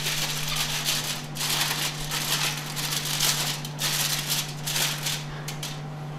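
Aluminum foil crinkling as hands press and crimp a foil tent over a turkey roasting pan, in irregular rustling bursts that thin out near the end, over a steady low hum.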